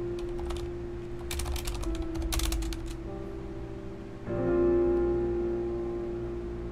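Typing on a Corsair mechanical keyboard in short bursts of key clicks over slow background music of held chords. The typing dies away about halfway, leaving mostly the music.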